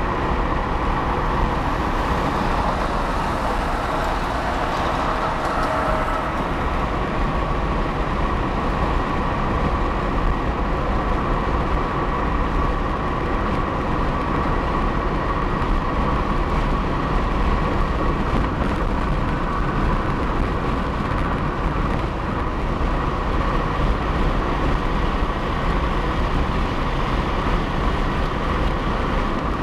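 Steady road noise of a car driving at highway speed: tyres on concrete freeway pavement with engine and wind noise, a continuous even rumble.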